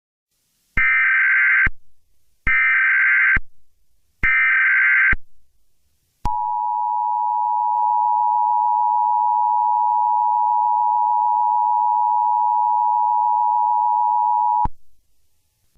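Emergency Alert System SAME header: three short bursts of warbling digital data tones, each about a second long. Then the EAS two-tone attention signal, a steady dual tone held about eight seconds that stops abruptly, announcing an emergency alert message.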